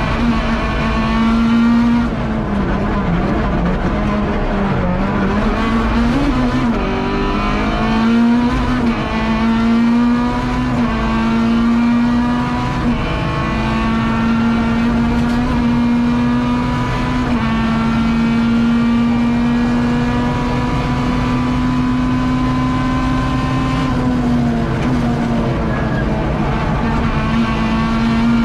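Rally car engine at full throttle, heard from inside the car: it climbs in pitch, drops back with each gear change and pulls up again, holding a steady high pitch for several seconds in the middle.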